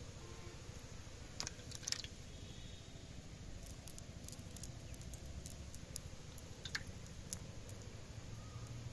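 Faint handling sounds of a wet nylon fishing net being picked over by hand: soft squishes and scattered sharp clicks, a few near two seconds in and again near seven, over a low steady rumble.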